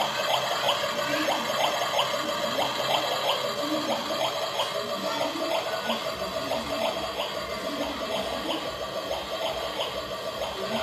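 Toy kitchen stove's battery-powered electronic cooking sound effect playing through its small speaker: a steady water-like hiss with a held tone and faint regular ticks, fading slightly towards the end.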